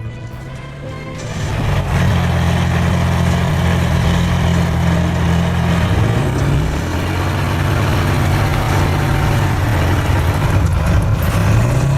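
A large engine running steadily, its pitch shifting up and down briefly around the middle and again near the end.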